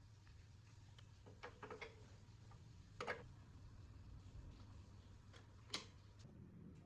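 A few light clicks and taps over a low steady hum: a small cluster about a second and a half in, the sharpest about three seconds in, and another near six seconds, as tools or metal parts are handled.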